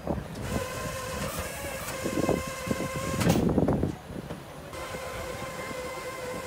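Steady whine from an enclosed car-hauler trailer's hydraulic liftgate, with loud metallic clanks and knocks about two seconds in and again around three and a half seconds.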